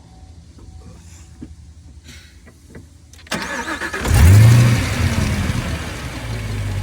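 Chevrolet Camaro ZL1's supercharged V8 being started: a few faint clicks, then the starter cranks about three seconds in, the engine catches with a loud rising rev flare, and it settles into a steady fast idle.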